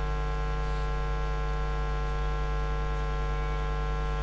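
Steady electrical mains hum in the microphone and sound-system chain: a constant low buzz with many evenly spaced overtones.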